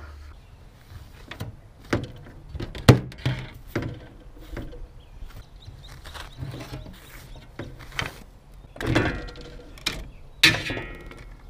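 Irregular knocks, clanks and scrapes of aluminium brackets and tools being handled on a box truck's aluminium roof. The sharpest knock comes about three seconds in and another near the end.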